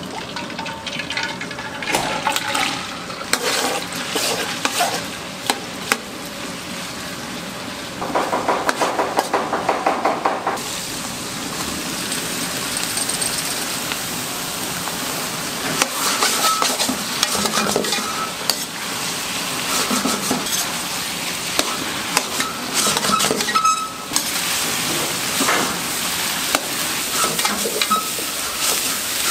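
Eggplant and onion stir-frying in oil in a wok over a gas burner: a steady sizzle, with a metal utensil repeatedly scraping and clattering against the pan.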